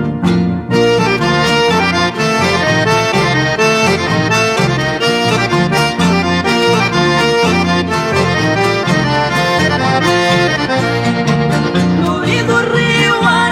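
Instrumental music with a steady beat, led by a reed-like melody instrument. A voice starts singing near the end.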